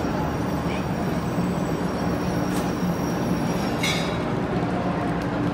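Steady low hum of a 500 Series shinkansen standing at the platform, its onboard equipment running, with two faint clicks in the middle.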